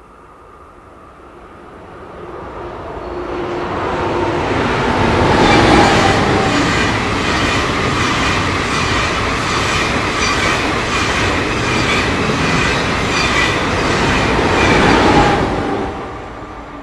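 Passenger train passing at speed. The sound builds over the first few seconds, then the wheels give a regular clatter over the rails, and the noise drops away sharply near the end as the last coach goes by.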